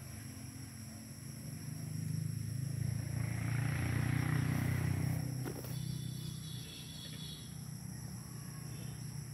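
A vehicle passing at a distance: a low rumble that swells over a few seconds, peaks about four seconds in with a hiss of tyres, then fades away.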